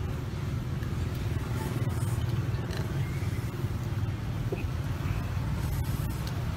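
Steady low motor rumble, like nearby traffic or an engine running, with a few faint taps as a spoon cracks the shell of a boiled duck egg.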